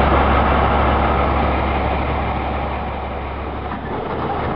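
Flatbed truck's engine running steadily with a low hum, easing off a little about three seconds in.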